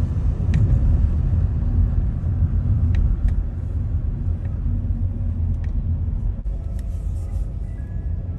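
Low, steady road and engine rumble of a car driving at moderate speed, heard from inside the cabin, with a few faint scattered clicks.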